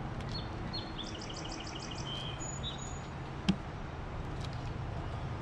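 A songbird sings a quick trill of repeated high notes over the first few seconds. About three and a half seconds in comes a single sharp knock, wooden hive frames bumping as they are pushed together in the box.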